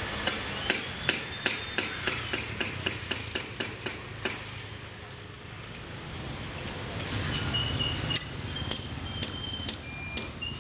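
Rapid sharp knocks, about three a second, for the first four seconds, then after a pause a few louder, more widely spaced strikes, some with a brief metallic ring.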